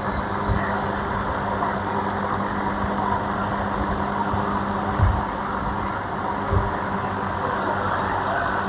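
A steady motor hum with a few dull thumps, one about five seconds in.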